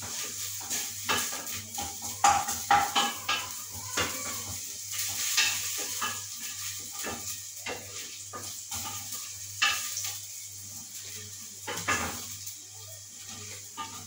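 Wooden spoon stirring and knocking against the inside of a metal pot in irregular scrapes and clacks, loudest a couple of seconds in, with food sizzling in the pot.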